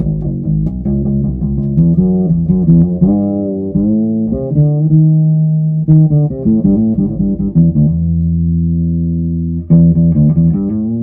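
Ibanez SRH505F fretless bass played as a line of plucked notes, some sliding in pitch, with a long held note about halfway through and another near the end.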